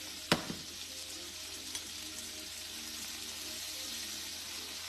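Chicken, onions and peppers sizzling steadily in a frying pan, with one sharp knock about a third of a second in.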